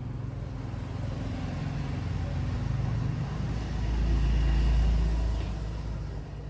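A motor vehicle passing by: a low engine rumble that grows louder, peaks about four to five seconds in, then fades away.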